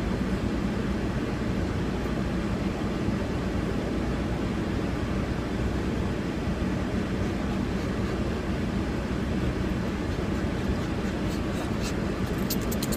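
Steady low hum inside the cabin of a car standing with its engine idling and the air conditioning running. A few light clicks near the end.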